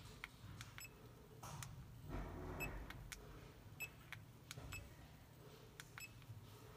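Wristwatch pager receiver's buttons being pressed: faint clicks, several of them with a short high beep, as its settings menu is stepped through. A low handling rustle comes about two seconds in.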